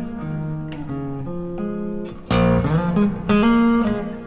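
Acoustic blues guitar playing an instrumental fill, reproduced by a Mark Audio Alpair full-range driver in a back-loaded horn speaker. Picked notes lead into two louder strummed chords, the first a little past halfway with bent notes.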